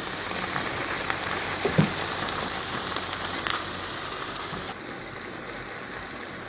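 Saucy pork, onion and tomato stew sizzling in a frying pan: a steady hiss with small pops, a little quieter about five seconds in.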